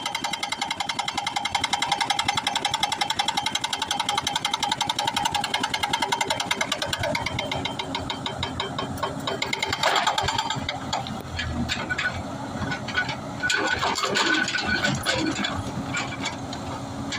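Excavator-mounted hydraulic breaker hammering rapidly and steadily on hard stone, stopping about halfway through. After that the excavator's diesel engine runs, with scattered knocks and clatter.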